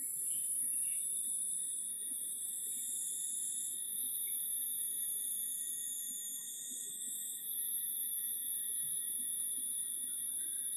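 Steady high-pitched shrill tones: a piercing single tone comes in right at the start and holds, over a higher, louder shrill hiss that shifts in pitch.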